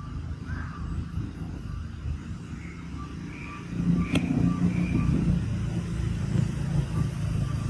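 Low rumble of a motor vehicle's engine, growing louder about four seconds in, with a single sharp click just after.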